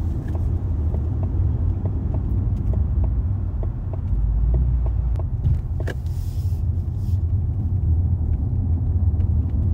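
Inside a moving car: a steady low rumble of engine and road noise, with a few faint light clicks scattered through it.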